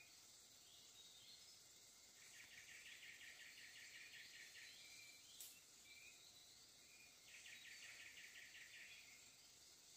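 Faint woodland ambience: a steady high hiss of insects, two rapid pulsed trills of about two seconds each, and a few short high chirps, with a single sharp click about halfway through.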